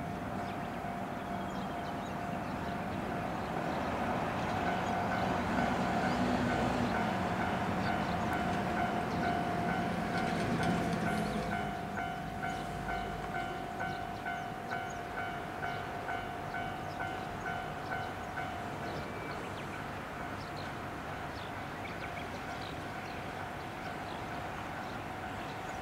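A JR West KiHa 47 diesel railcar approaching, engine running, with a warning bell ringing in a steady repeating rhythm that stops about three quarters of the way through.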